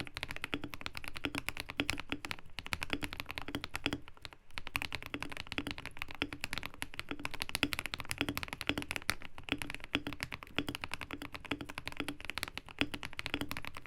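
Fast continuous typing on a Keydous NJ80 mechanical keyboard with lubed KTT Kang White V3 linear switches, a brass plate, PE foam and tape mods, and PBT keycaps: a dense stream of key clacks, with a brief pause a little over four seconds in.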